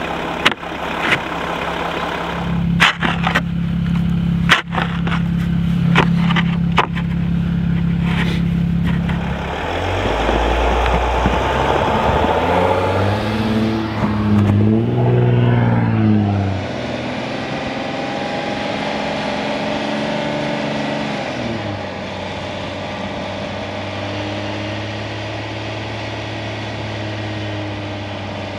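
Mercedes Sprinter van's diesel engine running while plastic traction boards are jammed under the front tyres in deep snow, with sharp knocks and scrapes during the first several seconds. About halfway through, the engine revs up and down several times as the stuck van tries to climb out on the boards. Then a steadier engine sound as the van drives on through the snow.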